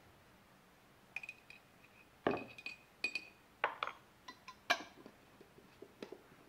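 A metal spoon clinking against a glass jar and a ceramic bowl while scooping pickled jalapeños, a string of sharp clinks, some with a short ring. Near the end comes the handling of the jar's metal screw-on lid as it is put back on.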